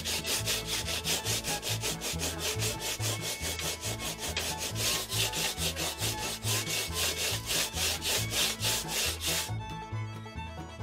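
Hand sanding block rubbed quickly back and forth along a glued-up rod blank, about five scratchy strokes a second, taking off the excess glue. The strokes stop about a second before the end, leaving only background bluegrass music.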